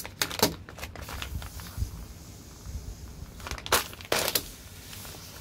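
Clear plastic vacuum-compression bag crinkling and crackling as it is handled and opened to let the compressed cushion inside take in air, with a few sharp bursts about half a second in and again near four seconds in.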